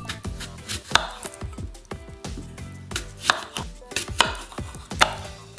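A chef's knife slicing through fresh apples and knocking on a wooden cutting board. It makes a few sharp, irregularly spaced chops, the loudest about a second in and then three more in the last half.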